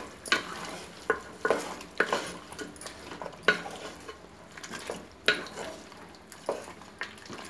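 A wooden spoon scraping and knocking against an aluminium cooking pot as chicken is stirred through a thick yogurt and spice masala. The strokes come irregularly, about one or two a second, over a low sizzle of the frying chicken.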